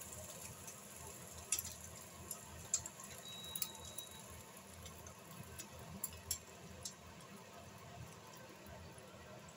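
Eggs frying in oil in a nonstick pan: a faint, steady sizzle with scattered sharp pops and spits.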